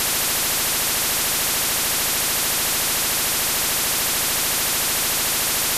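Synthetic sound made by converting an image into audio: a loud, steady hiss filling the whole range, brightest in the treble, with a fast, even flutter in its low end.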